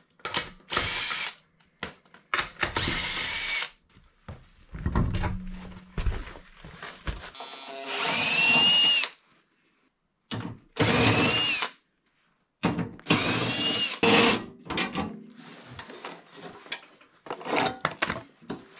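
Cordless power tool run in short bursts of about a second, six or so times, its whine rising in pitch as it spins up each time, with knocks and clicks of tools on metal in between.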